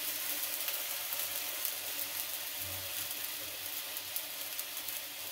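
A little water sizzling in a hot metal kadhai on a gas burner: a steady hiss with faint crackles.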